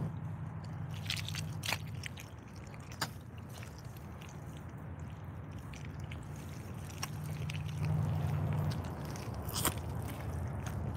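Irish Setter rubber boots squelching and shifting in soft wet mud, with scattered sharp clicks and squishes as the feet move, over a steady low rumble.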